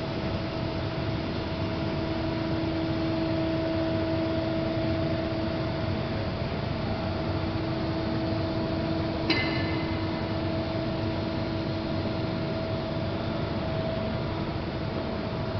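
Large vertical turning lathe running with a steady mechanical hum and a pair of steady whining tones. A single sharp metallic clink rings briefly about nine seconds in.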